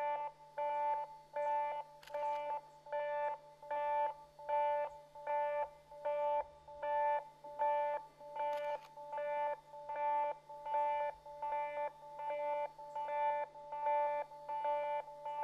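Japanese railway level-crossing warning bell ringing as a train approaches: a steady two-tone electronic ding, one ding about every three-quarters of a second.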